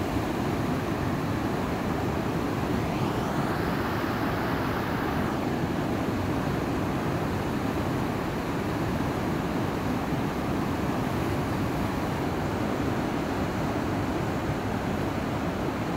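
Steady roar of a fast, turbulent, flood-brown river rushing past rocks, an even rumbling hiss that holds at one level throughout.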